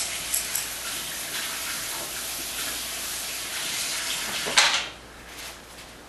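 A steady hiss with a few light clicks, then a brief louder rush about four and a half seconds in, after which the hiss cuts off.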